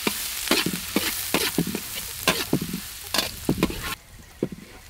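Chopped garlic sizzling in hot oil in a metal wok while a metal spatula stirs it, scraping and clinking against the pan several times a second. The sizzle drops off sharply about four seconds in, leaving the spatula strokes.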